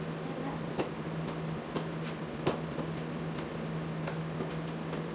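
Steady low hum of room tone with about ten faint, sharp clicks and taps at irregular intervals.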